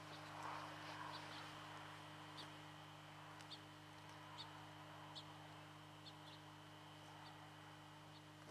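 Near silence: faint, short bird chirps about once a second over a steady low hum.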